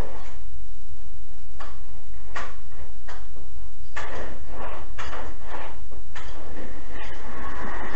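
A hand roller sheet-metal bender being handled on the edge of a steel sheet: a string of irregular metal clicks and knocks, each ringing briefly, over a steady low hum.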